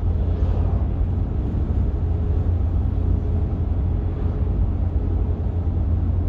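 Freight train cars rolling past in a steady low rumble.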